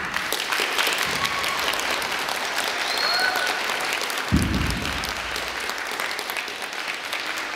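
Audience applauding steadily, with a few short whistles and one low thump about four seconds in.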